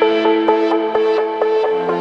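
Background electronic music: held synth chords with short melodic notes over them, in a break in the beat.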